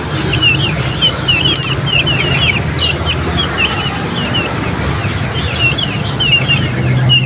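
Many small birds chirping together: a dense, continuous stream of short, high, downward-slurred chirps, several a second and overlapping, over a steady low hum.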